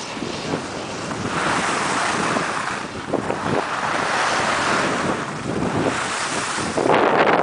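Wind rushing and buffeting over the microphone of a camera moving fast down a ski slope, with the hiss of sliding over snow underneath. The rush swells louder near the end.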